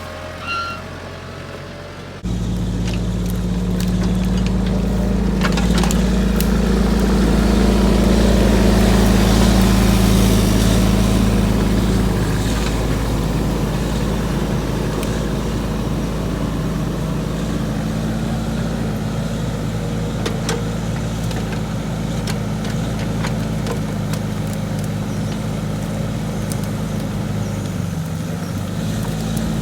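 Mini excavator engine running steadily under work; it comes in suddenly and loudly a couple of seconds in. Scattered sharp cracks and clicks sound over it.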